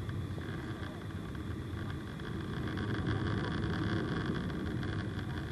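Airliner cabin noise heard at a window seat: a steady rumble of the jet engines and airflow, swelling louder for a couple of seconds in the middle.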